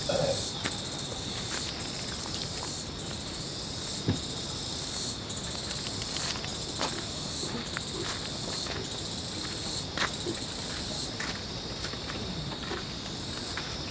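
Insects calling in a steady high-pitched chorus that pulses about every 0.7 seconds, each pulse rising slightly, weakening near the end. A few faint knocks and clicks come through.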